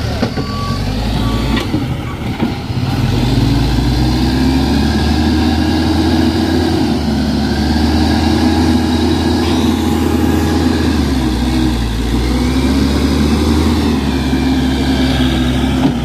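Case backhoe loader's diesel engine running steadily, revving up about three seconds in as the machine works. Its reversing beeper sounds briefly at the very start.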